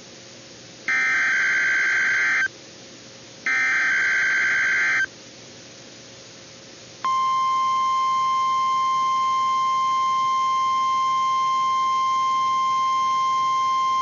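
NOAA Weather Radio EAS signal for a Required Monthly Test. It opens with two bursts of the screechy SAME digital header, each about a second and a half long and a second apart. About seven seconds in, the steady 1050 Hz weather radio warning alarm tone starts and holds.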